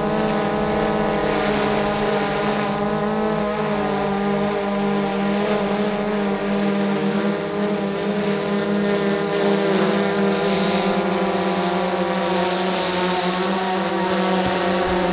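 DJI Mavic 2 Pro quadcopter hovering hands-off in the wind, its propellers giving a steady buzzing whine whose pitch wavers slightly as the motors hold it in place.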